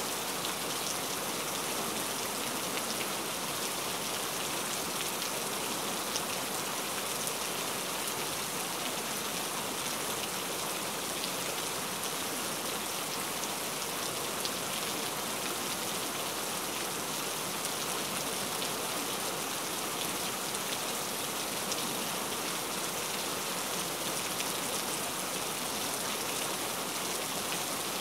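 Steady rain, a constant hiss with scattered faint drop ticks throughout.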